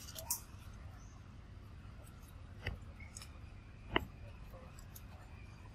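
A few sharp snaps and clicks of twigs and branches as a young monkey climbs through them, the loudest about four seconds in, over a low steady rumble.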